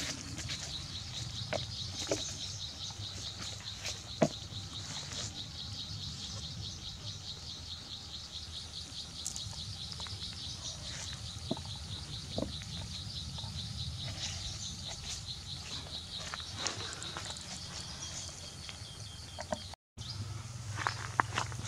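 An insect calling in a fast, even, high-pitched pulsing trill, with scattered light clicks and knocks from fish and wooden sticks being handled on a stick grill rack over charcoal.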